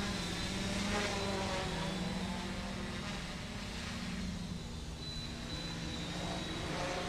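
Large quadcopter's four 900 kV brushless motors and propellers buzzing in flight, the pitch wavering as the throttle changes and the buzz weakening about halfway through.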